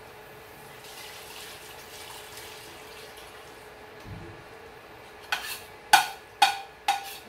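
Cream of mushroom soup being knocked out of a ceramic bowl over a stainless steel pot: a soft slide and a dull thump, then sharp ringing clinks about twice a second in the last two seconds as the bowl is tapped empty.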